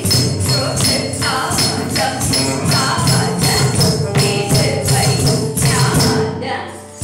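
Carnatic music accompanying a Bharatanatyam kauthuvam: singing and instruments over a steady beat, with the jingle of the dancers' ankle bells and their stamping feet.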